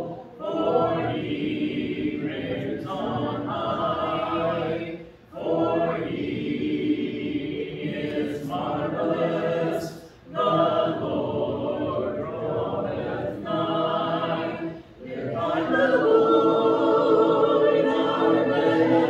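A church congregation singing a hymn a cappella, many voices together without instruments, in sustained phrases with short breaths between them about every five seconds.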